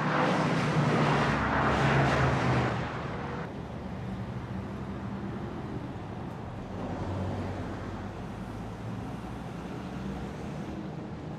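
Street ambience with vehicle noise: a loud rush of traffic noise for the first three seconds or so, dropping off suddenly to a steady low traffic rumble.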